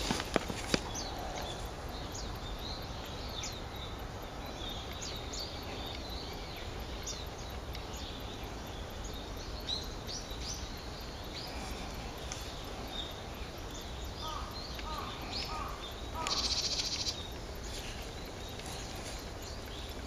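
A mixed flock of small birds calling from dense bushes: many short, thin, high calls scattered throughout, with a louder rapid rattling call lasting under a second late on.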